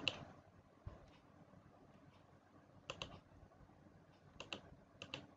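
Faint computer mouse clicks over near silence: a few single clicks, then two quick pairs near the end.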